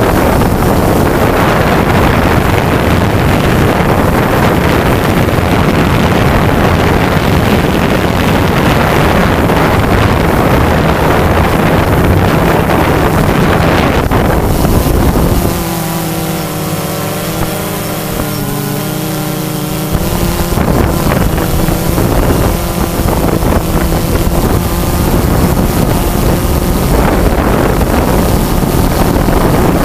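DJI Phantom 2 quadcopter's motors and propellers heard from its own onboard camera, under heavy wind rushing on the microphone. About halfway through the wind drops for a few seconds and the motors' whine comes through plainly as several tones wavering slightly in pitch, before the rushing returns.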